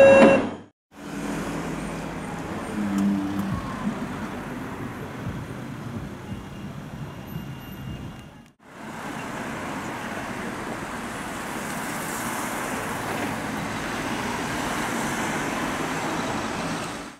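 The last notes of a short chime jingle, then road traffic: cars passing on a busy street, heard in two stretches with a brief break just past halfway.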